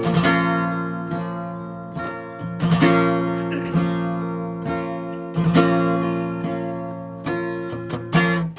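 Acoustic guitar strumming slow chords, each struck chord left to ring and fade before the next, about five strums in all.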